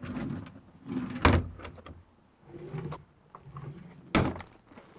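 Wooden cabinet drawers and a storage panel being pulled open and pushed shut, with wooden rattles and two sharp knocks, one a little over a second in and one near the end.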